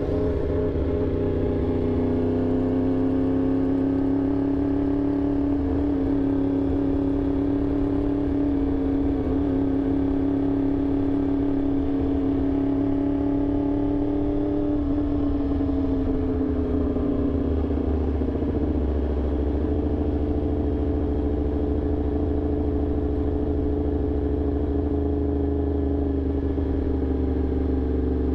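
Motorcycle engine running at a fairly steady speed, its pitch dipping a little about halfway through and then holding lower, over a steady low rumble.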